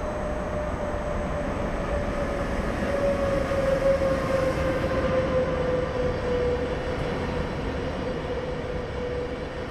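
Freight train on metre-gauge track rolling slowly, a low rumble with a steady whining tone that sinks slightly in pitch and swells about four seconds in.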